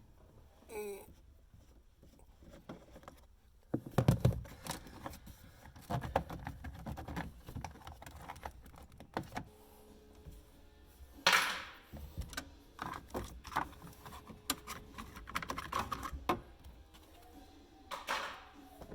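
Irregular clicks, knocks, light rattles and rustling from someone handling things and moving about inside a car's stripped interior, with two short loud swishes about 11 and 18 seconds in.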